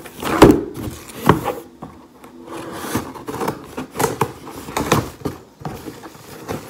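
A delivery parcel being handled and opened: irregular knocks and scrapes with rustling of the packaging.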